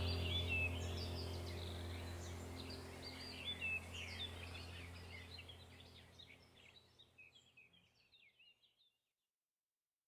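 Birds chirping and trilling over a low, steady droning tone, both slowly fading out and gone about eight seconds in.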